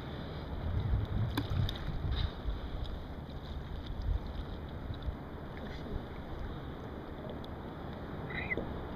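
Wind rumbling on the microphone over open sea, with water lapping around a kayak and a few light splashes from the paddle in the first two seconds.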